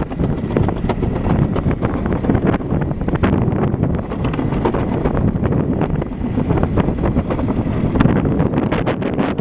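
Summer bobsled running down a trough-shaped track: a continuous rumble with many short rattles and knocks, under heavy wind noise on the microphone.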